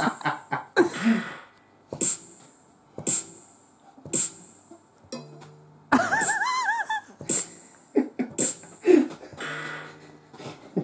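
Sparse electronic jam from a synth: a short sharp percussive hit about once a second over low held notes, with a warbling, wavering synth tone about six seconds in.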